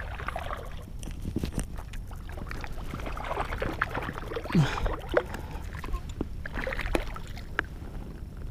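Spinning reel cranked to bring in a hooked largemouth bass, with rapid small clicks and short splashes as the fish thrashes near the surface. A steady low rumble of wind on the microphone runs underneath.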